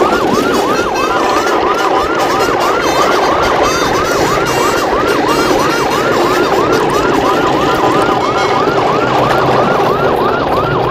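Electronic siren in a fast yelp, its pitch sweeping up and down about three times a second without a break, over a steady rumbling noise.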